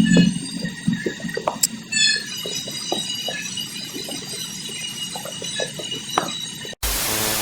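Outdoor background of steady high-pitched tones with scattered small clicks and knocks. Near the end it drops out, and a short burst of static-like hiss follows and cuts off abruptly.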